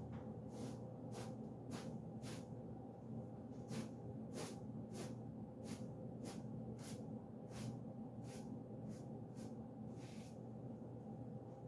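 Rhythmic scratchy cleaning strokes, about two a second, with a longer one near the end, over a steady low hum.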